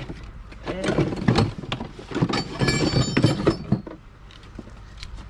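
Metal tools and car parts clinking and knocking in a series of handling sounds, with a brief ringing of metal partway through, over a steady low rumble.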